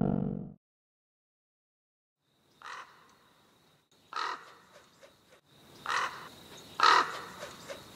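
A distorted music cue dies away in the first half second; after a pause a bird caws four times, spaced out, the last two closer together.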